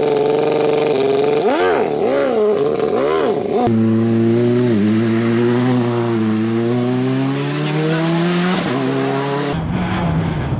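Citroën C3 rally car's engine revving up and down in a few quick blips as it works out of a roadside ditch, then a long pull with rising revs as it drives off, tyres hissing on the mud. The engine sound cuts off abruptly near the end.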